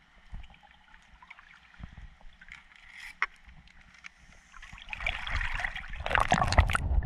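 Pool water sloshing and splashing right at a GoPro held at the water's surface, faint at first with a few small ticks, then growing loud about five seconds in.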